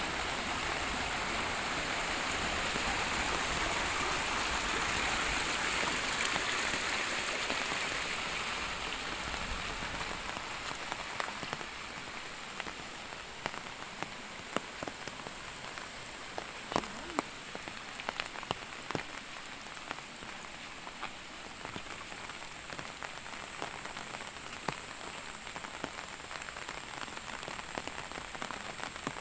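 Light rain falling. A steady hiss is heaviest for the first eight seconds or so and then eases, leaving many separate drops ticking sharply close by.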